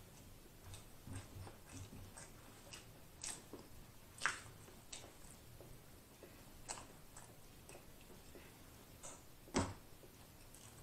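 Quiet, close-up chewing of a mouthful of corn dog with the mouth closed: soft, irregular wet clicks and smacks, with two louder clicks about four seconds in and near the end.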